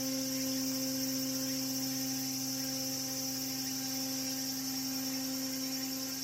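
The Diamond Princess cruise ship's whistle sounding one long, deep, steady blast, the signal as the ship gets under way ahead from her berth. Cicadas buzz high and steady behind it.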